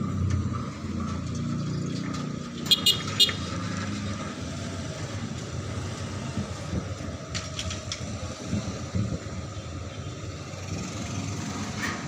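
Steady rumble of motor vehicles running nearby, with three short sharp sounds in quick succession about three seconds in and a couple more near eight seconds.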